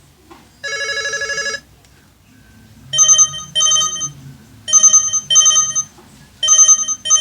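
LG GW300 mobile phone ringtones playing from the phone's speaker. One burst of a fast trilling ring comes near the start, then from about three seconds in a different tone plays in pairs of short beeps, three pairs in all.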